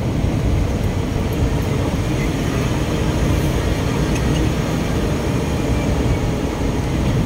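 Steady road and engine noise inside a moving car, a low, even rumble with no distinct events.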